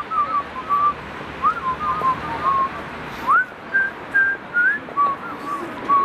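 A person whistling a tune: short held notes and quick upward slides, one note at a time.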